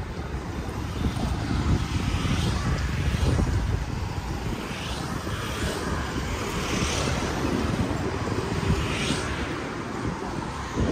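Road traffic going by, mostly motorbikes, several passing close and fading away one after another, over a steady rumble of wind on the microphone.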